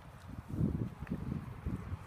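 Wind buffeting the microphone: a low, irregular rumble.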